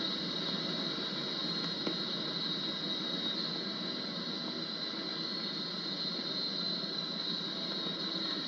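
Steady hiss and static of a longwave AM broadcast on a Yaesu FRG-8800 communications receiver, with a steady high-pitched band of hiss running through it.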